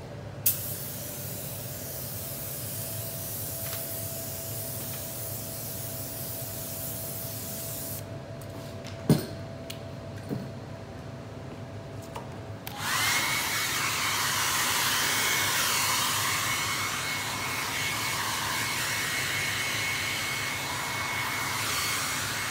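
Air-fed DeVilbiss spray gun hissing steadily as it sprays clear leather lacquer, then stopping about eight seconds in. A couple of clicks follow, and at about thirteen seconds a handheld hot-air dryer switches on, blowing steadily with a thin high whine to dry the fresh lacquer coat.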